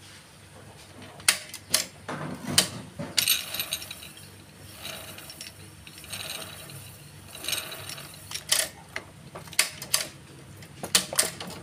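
Exposed wet clutch of a Yamaha four-stroke underbone motorcycle being worked and spun by hand in a clutch function test: a series of sharp metallic clicks with short stretches of ratcheting whirr as the clutch pack spins.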